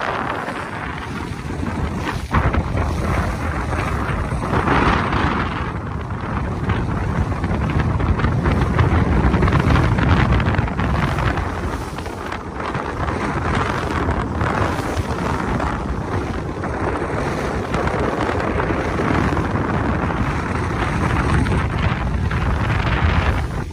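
Motorboat under way: a steady rush of wind buffeting the microphone mixed with water rushing along the hull, swelling louder now and then.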